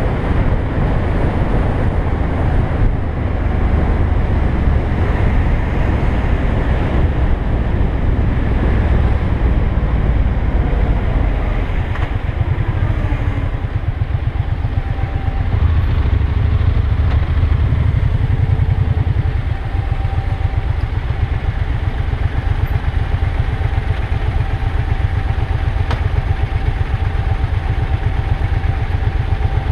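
Motorcycle engine running while riding, with road and wind rumble on the bike-mounted microphone. The rumble eases about two-thirds of the way through as the bike slows in traffic.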